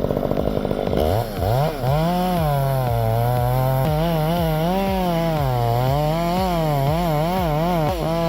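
Chainsaw engine revving up about a second in, then running with its pitch repeatedly rising and falling as the throttle is worked.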